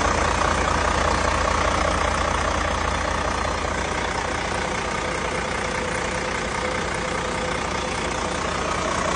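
Volvo VNL truck's diesel engine idling steadily, with an even low throb and a steady whine above it.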